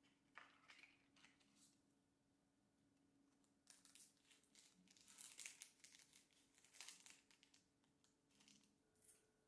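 Faint crinkling and rustling of the wrapping on cut flowers, including a gerbera's clear plastic sleeve, as the flowers are unwrapped by hand. It comes in a series of short bursts, busiest in the middle.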